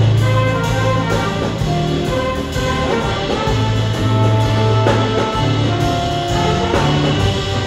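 Student band playing live: brass, electric guitar, piano and drums over held low bass notes, with two sharp percussion hits about five and seven seconds in.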